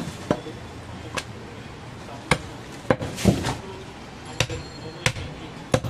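A long, heavy butcher's knife chopping through goat meat into a wooden stump chopping block. About eight sharp thuds come at uneven spacing, roughly one a second, and one near the middle is louder.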